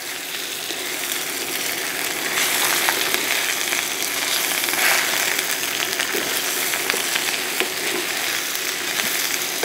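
Thinly sliced potatoes and onions sizzling in hot oil in a stainless steel skillet, with a wooden spatula stirring and scraping them around the pan in small clicks.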